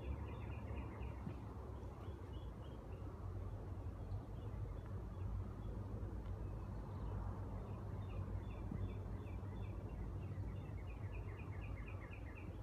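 A songbird singing phrases of quick, repeated short chirps every few seconds, over a steady low hum.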